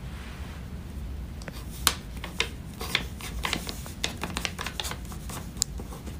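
Fingers tapping on a phone screen: light, irregular taps and clicks starting about a second and a half in, a few sharper than the rest, after a brief soft rustle.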